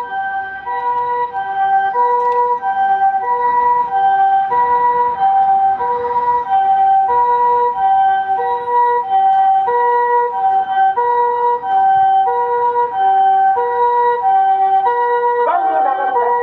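Japanese ambulance's electronic harmonic siren sounding its two-tone hi-lo call, switching between two pitches about every 0.6 seconds in a steady, even rhythm.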